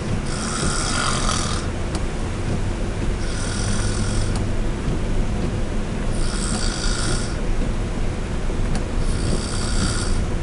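A woman snoring: four snores, each about a second long and roughly three seconds apart, over a steady low rumble.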